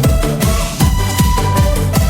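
Electronic dance music with a steady kick drum, about two and a half beats a second, under held synth notes.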